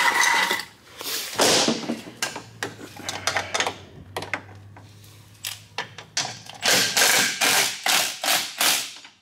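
Metal knocks, taps and rattles from hardware and hand tools being worked on a snowmobile, with a quick run of clattering near the end.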